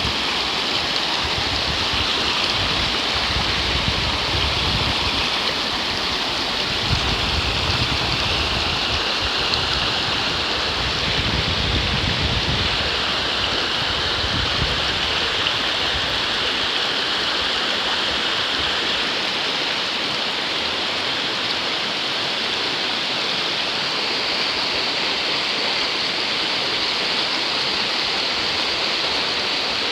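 Canyon river rushing steadily over rocks, a constant hiss of fast water. A low rumble comes and goes during the first half.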